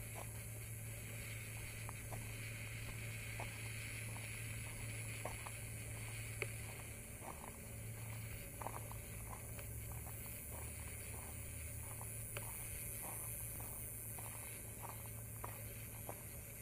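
Faint footsteps on a gravel trail, soft irregular ticks about one or two a second over a steady low hum and a high hiss.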